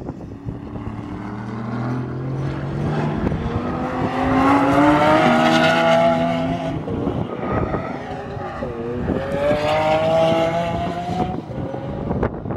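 Lamborghini Aventador V12 accelerating hard, its engine note climbing in pitch, dipping briefly about two-thirds of the way through and climbing again.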